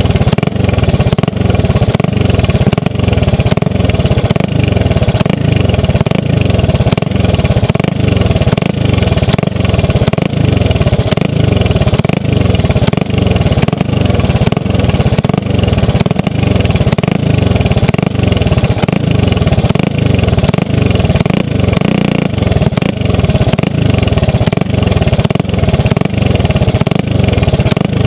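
Kart's Briggs & Stratton Animal four-stroke engine idling steadily with an even low pulse, heard up close from the kart itself.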